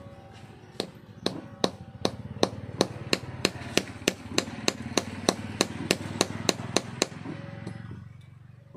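Carpenter's pincers working a file's plastic handle: a quick, even run of sharp clicks, about three a second, over a steady scraping.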